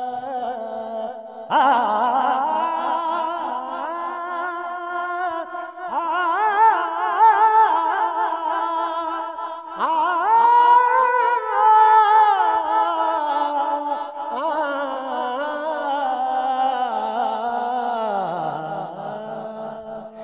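A man singing a naat solo without accompaniment, in about four long drawn-out phrases of held notes with a wavering vibrato.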